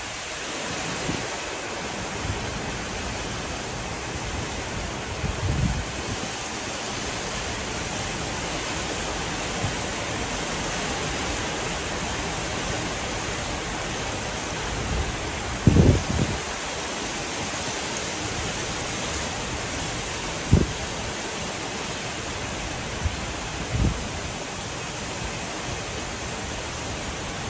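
Heavy rain pouring down onto pavement and a parking lot in a steady, even rush. A few brief low thumps break through it, the loudest about halfway.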